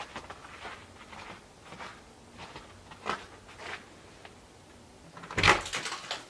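Footsteps at a walking pace, then a door banging loudly about five and a half seconds in.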